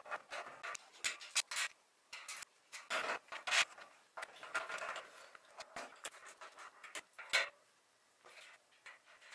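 Metal bunk bed frame parts being handled during assembly: irregular clinks, knocks and scraping of the metal tubes and brackets.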